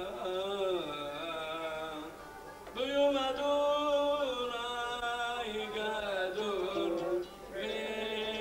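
An elderly man singing a Hebrew piyyut (liturgical poem) into a microphone, in long ornamented phrases that bend in pitch. He breaks off briefly for breath about two seconds in and again about seven seconds in.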